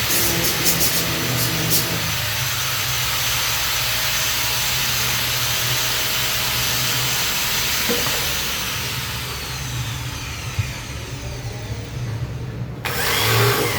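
An electric woodworking power tool running steadily with a whining hiss, switched off about eight seconds in and spinning down. A different short sound comes in just before the end.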